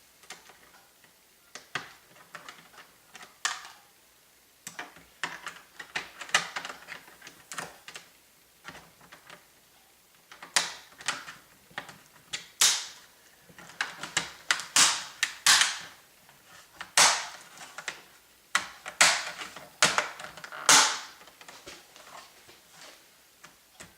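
Irregular sharp plastic clicks and snaps from a Toshiba C650 laptop's small trim strip beside the keyboard being pressed into place. They come sparsely at first, then more often and louder for about ten seconds from the middle on.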